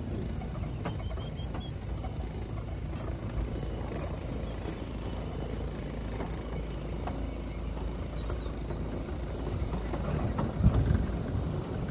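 All-electric open safari vehicle driving along a sandy bush track: a steady low rumble of tyres and rattling bodywork with no engine note, and a heavier jolt a little before the end.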